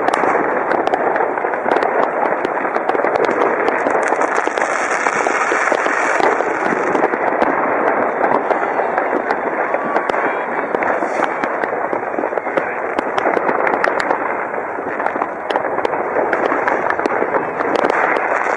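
New Year's Eve fireworks and firecrackers going off all over, a dense continuous crackle of many overlapping bangs and pops with no let-up.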